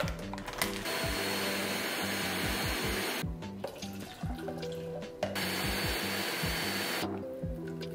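Countertop blender running on high, blending frozen fruit into a smoothie, in two runs of about two seconds each, the first starting about a second in. Background music with a steady beat plays underneath.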